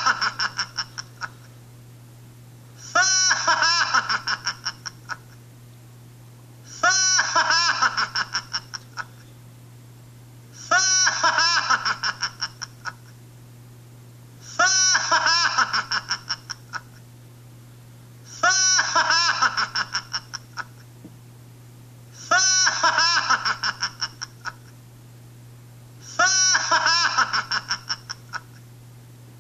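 A high-pitched, childlike cackling laugh, the same laugh looped about every four seconds: each burst is about two seconds of quick 'ha' pulses that fade out, about eight times in all. A steady low hum runs under it, as if heard off a television.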